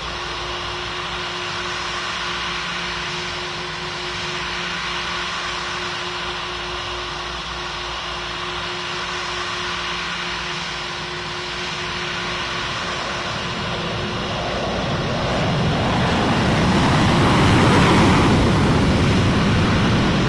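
Airplane passing close: a steady engine hum with a held tone, then the aircraft's noise swells over the last several seconds, loudest about two seconds before the end.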